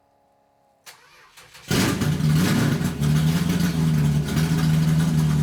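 Turbocharged Toyota 1UZ 4.0 V8 in a Subaru Justy: a click, under a second of cranking, then the engine catches and settles into a loud, steady idle.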